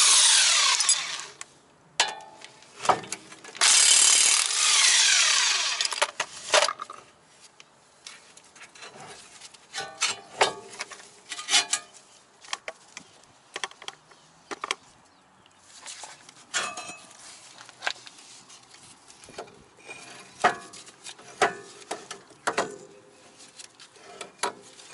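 Cordless impact wrench running in two bursts of about two seconds each, one at the start and one about four seconds in, undoing the 17 mm brake caliper bracket bolts. After that come scattered metal clinks and clanks as the caliper and bolts are handled.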